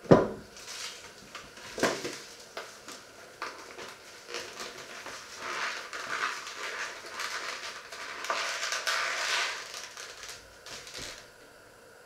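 Kitchen handling sounds: a sharp knock at the start and another about two seconds in, then several seconds of irregular rustling and scraping.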